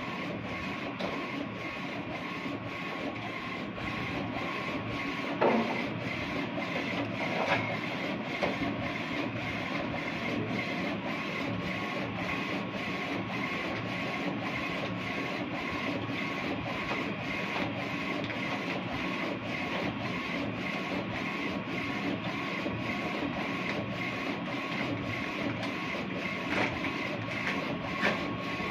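DTF printer with Epson XP600 printheads printing onto PET film: the printhead carriage shuttles back and forth with a steady mechanical whir and a faint steady whine. A few sharper knocks come about five and seven seconds in and again near the end.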